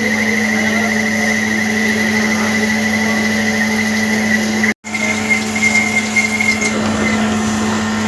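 Machine tool running with a steady hum and a high, wavering whine. The sound cuts out for an instant about five seconds in, then carries on.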